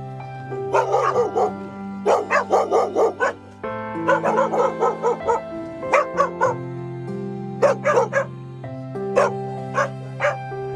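Caged dogs barking in repeated bursts at a stranger by their kennel, territorial barking now that they treat the enclosure as their own space. Background music plays steadily underneath.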